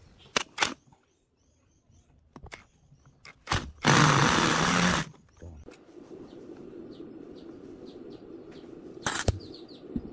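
A few sharp metal clicks from tools working on a rusty old fan motor's switch housing. Near the middle comes a loud hiss lasting about a second, then a steady low hum with birds chirping faintly.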